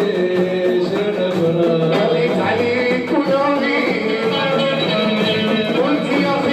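Live music with singing over instrumental accompaniment, playing continuously.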